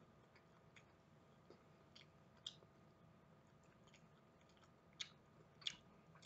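Faint chewing of fried breaded chicken strips, with a few short crisp clicks from the mouth and food: one about two and a half seconds in and two close together near the end.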